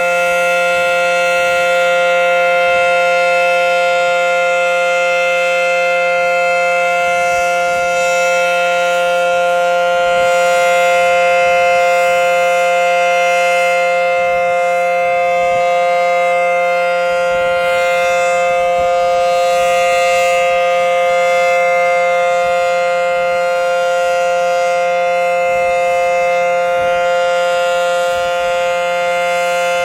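Federal Signal SD-10 outdoor warning siren sounding the steady Alert signal during a test, holding one loud, unwavering tone.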